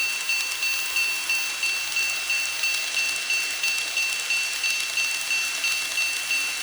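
Level crossing warning bell on an N-gauge model railway layout, ringing in a steady, even rhythm of about three high clangs a second. An even hiss runs underneath.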